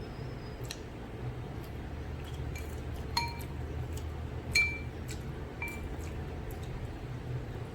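Cutlery clinking against a bowl of noodles during eating, a handful of short ringing clinks with the loudest about four and a half seconds in, over a steady low hum.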